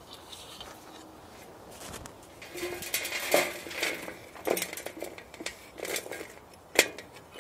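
A hand bucket auger grating in dry soil, then soil and grit tipped out of it onto a metal tray, rattling and scraping, with a few sharp metallic knocks.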